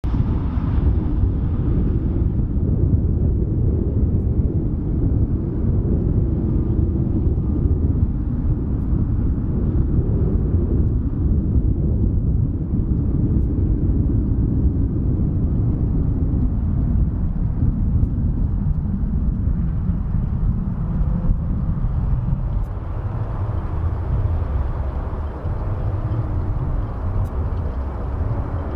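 Boeing 777F freighter on final approach, its GE90 engines at approach power heard as a steady low rumble. A faint whine comes in over the last few seconds as the aircraft nears.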